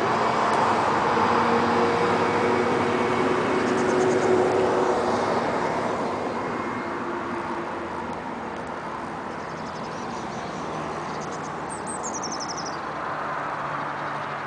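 A steady engine hum with a rushing noise, easing off after about five seconds, and a short falling bird chirp near the end.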